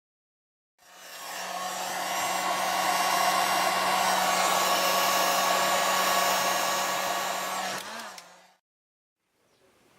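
Electric heat gun switched on and blowing steadily over heat-shrink tubing on a freshly crimped wire lug, shrinking it. The fan and motor run up over the first second or so and hold a steady hum, then dip in pitch and stop about two seconds before the end.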